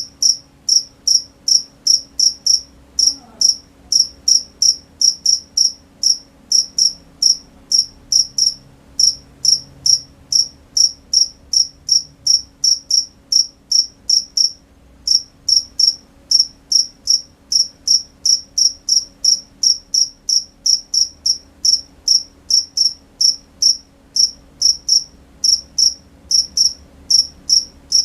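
A cricket chirping in a steady, regular rhythm of short high-pitched chirps, about three a second, broken by a couple of brief pauses, over a faint low hum.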